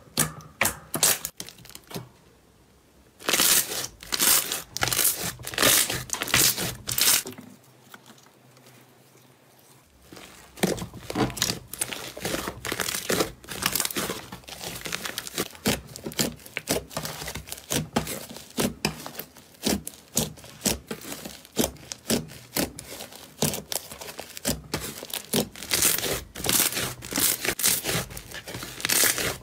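Hands squishing and kneading slime: rapid sticky clicks and crackling pops as air pockets burst. Loud pops come first, from a glossy slime, then a steady dense crackle from a fluffy slime, with two short lulls in between.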